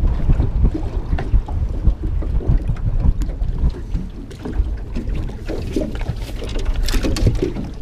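Wind rumbling on a small camera microphone, with scattered knocks and clicks of a fish and gear being handled in a boat.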